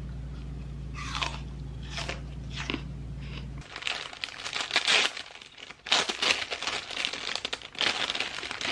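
Crisp apple slices crunching as they are bitten, about four bites over a low steady hum. About three and a half seconds in the hum stops and a clear cellophane bag crinkles in clumps as it is opened to take out a bread roll.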